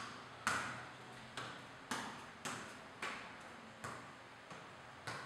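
Football being juggled barefoot: a string of dull thuds as the ball strikes the player's foot and knee, about two a second at an uneven pace, each with a short echo.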